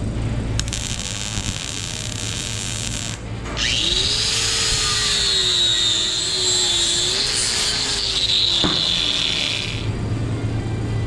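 Arc welding crackle on a small steel bracket for about three seconds, then an angle grinder spins up and grinds the weld for about six seconds, its whine wavering under load before it stops.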